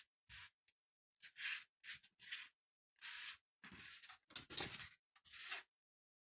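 A sheet of watercolour paper being handled and turned around on a table: a series of short, scratchy rustles and scrapes, with a few soft knocks around four to five seconds in.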